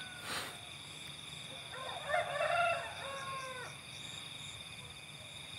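A rooster crowing once, a single call of about two seconds starting near the middle, over the steady high trill of crickets.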